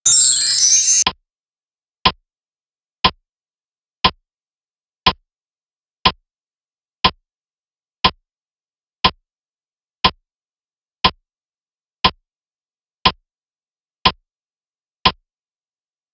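A loud one-second whoosh sound effect, then a clock-style tick once a second, fourteen ticks in a row: a countdown timer ticking off the answer time for a quiz question.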